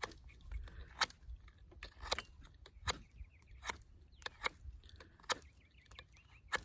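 Main blade of a Victorinox Hunter XT pocketknife whittling a point on a wooden stick: about ten short, sharp shaving strokes, roughly one every half second to second. The wood cuts easily, "like butter".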